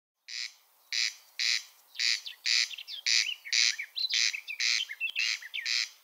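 Corncrake (Crex crex) calling: a dry, rasping note repeated about twice a second, the territorial song of a male. Faint thin chirps of another bird sound in the gaps through the middle.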